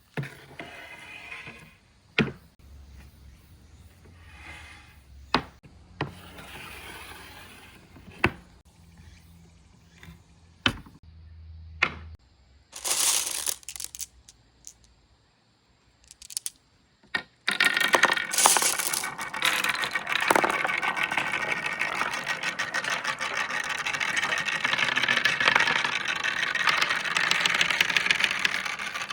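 Glass marbles rolling and clicking down a marble run's slopes: a few scattered clacks and rolling at first, then, about two-thirds of the way in, many marbles at once in a dense, continuous clatter.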